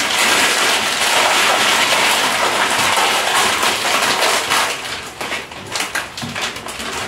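Several plastic snack wrappers crinkling as they are handled and torn open: a dense crackle that thins to separate crackles about four and a half seconds in.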